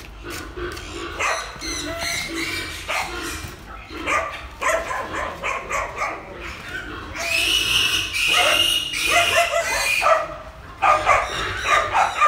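Young hybrid wild boar piglets packed in a sack under a wire-mesh lid, squealing in short repeated cries, with one long, loud, high squeal held for a couple of seconds past the middle.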